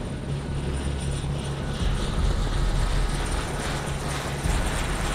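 Helicopter running close by, its engines and rotor making a steady low rumble.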